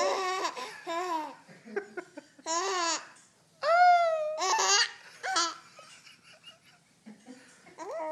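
A baby laughing in several short, high-pitched bursts with pauses between them, including a quieter gap of about two seconds before a last burst near the end.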